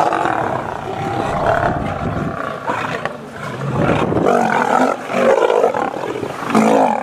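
Lions roaring, with several loud calls in the second half.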